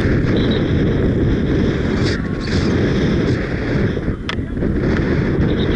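Strong, gusty wind buffeting the camera microphone of a paraglider pilot in flight, a loud steady rumble, with a sharp click about four seconds in.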